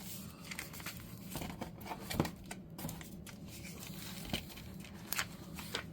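Handling noise as a steelbook case and its paper inserts are checked: light crinkling with a few scattered small clicks and taps.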